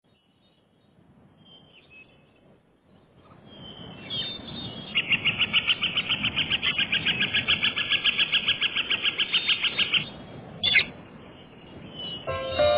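Bird sound: faint high calls, then a rapid, even string of chirps lasting about five seconds, then one short call. Music begins near the end.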